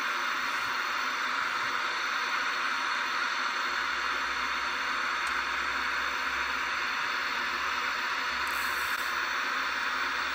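Steady static hiss from the powered-up 1972 Sony TV-750 portable television, an even noise with no rhythm or breaks.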